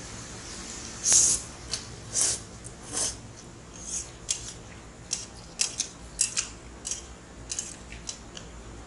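Ramen noodles being eaten: a string of short, crisp slurps and mouth clicks, irregular, about one every half second, the loudest about a second in.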